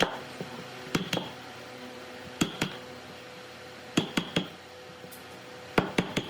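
Sharp knocks in groups of two or three, about every one and a half seconds, each with a short ring, over a faint steady hum.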